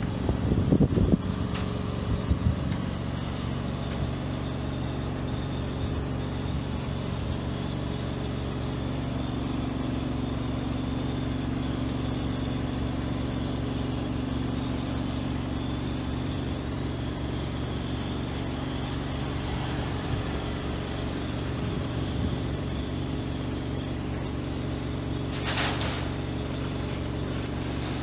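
Steady low hum of an idling engine on the road-marking truck. A few low knocks come in the first couple of seconds, and there is a short hiss near the end.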